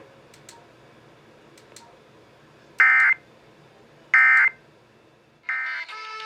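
Emergency Alert System end-of-message data bursts: three short, harsh digital tone bursts about a second and a half apart, signalling that the flash flood warning has ended. A tune starts right after the third burst.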